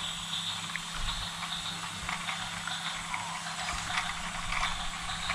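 Battery-powered toy train engine running around a plastic track, its small geared motor whirring steadily with a high whine and faint clicking of the wheels on the track.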